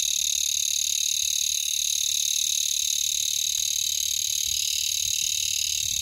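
Cicada calling: a loud, high-pitched, steady buzz with a fast pulsing rhythm.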